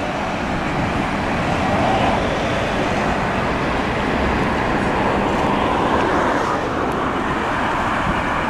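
Steady road traffic noise from cars and a bus passing close by.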